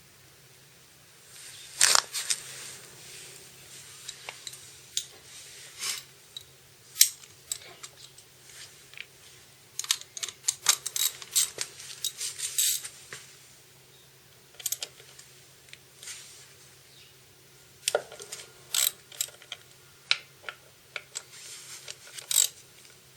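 Metal tools and parts being handled: scattered sharp clicks and clinks, some in quick runs, over a faint steady hum.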